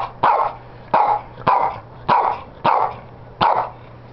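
Shih Tzu barking about seven times in a steady series, roughly one sharp bark every half second or so: demand barking at its owner for a hamburger.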